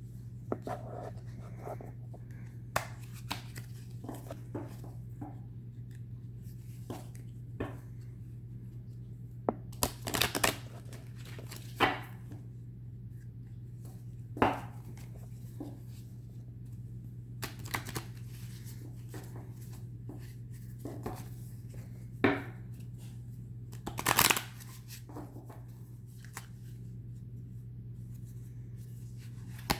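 A tarot deck being shuffled and handled by hand: short, irregular bursts of card shuffling and clicks, with the loudest bursts around ten, twelve, fourteen and twenty-two to twenty-four seconds in. A steady low hum runs underneath.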